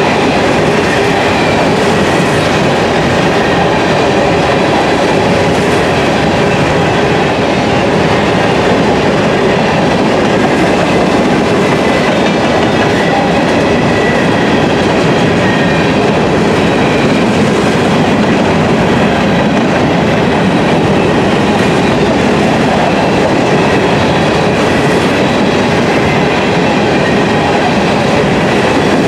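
Grain train's freight cars rolling steadily past at speed: continuous loud wheel-on-rail noise with clickety-clack from the rail joints, and a faint high wheel squeal running through it.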